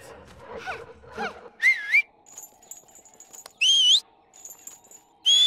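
Three short, high-pitched whistle-like calls, each gliding up in pitch, about two seconds apart, with fainter chirps before them.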